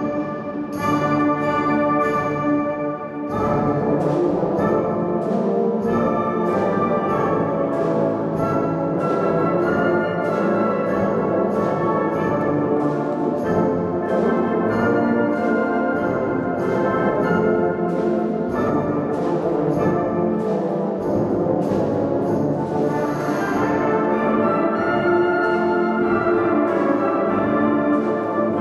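Concert wind band playing together: brass (trumpets, horns, tubas) with flutes, clarinets and saxophones, at a steady beat, the full band swelling in about three seconds in.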